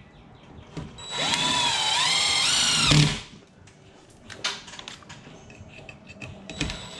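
Cordless drill driving a self-tapping screw for the ground wire into the electrical box: the motor whines for about two seconds, its pitch dipping twice under load, then stops. A few light clicks and knocks follow.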